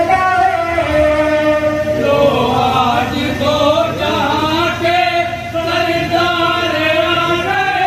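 Men's voices chanting a naat together in long, held notes, with several voices overlapping in the middle.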